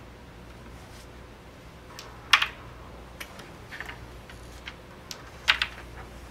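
Wooden crokinole discs being shot across the board and clacking against other discs and pegs: two loud double clacks about two and a half and five and a half seconds in, with lighter clicks between.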